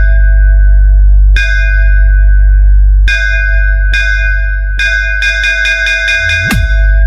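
Electronic DJ sound-check track: a deep, constant bass drone under repeated bell-like synth hits. About five seconds in, the hits quicken into a fast run that ends in a quick sweep down into the bass.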